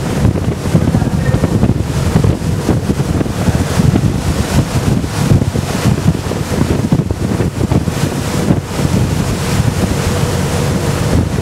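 Strong wind buffeting the microphone over the rush of rough sea and waves against a sailing yacht, a loud, constantly gusting noise heaviest in the low range.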